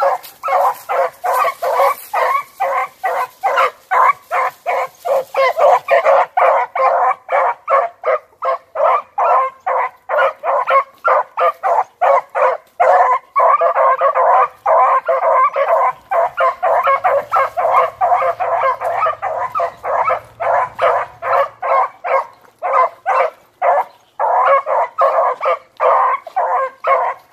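Beagles baying on a scent trail, a fast, steady run of short hound barks, about three a second, that keeps going without a break.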